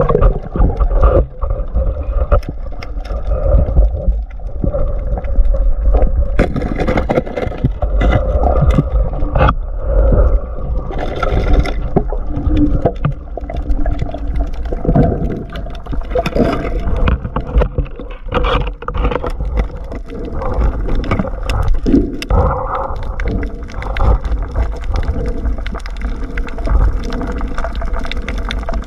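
Underwater sound on a diving camera's microphone: water rushing and gurgling past the housing with a steady low rumble, broken by scattered clicks and knocks.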